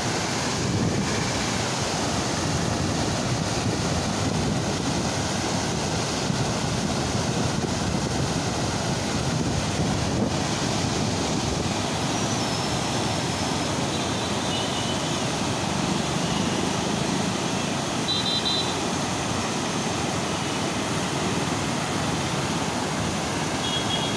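Muddy floodwater rushing fast through a river swollen by heavy rain, a steady, unbroken rushing noise of churning rapids.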